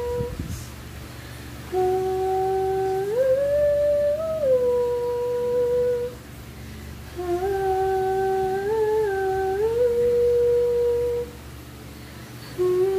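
A woman humming a slow melody in long held notes that step up and down, in phrases separated by short pauses.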